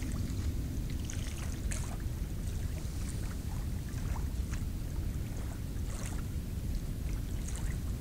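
Steady low rumble of wind on the microphone, with a few scattered faint short ticks.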